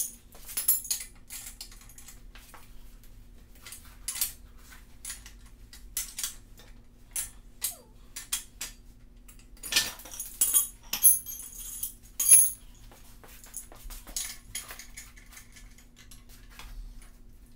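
Wrench and axle hardware on a Razor MX650 electric dirt bike being undone as the wheels come off: scattered metal clicks and clinks, with a busier, louder run of quick clinks about two-thirds of the way through, over a faint steady hum.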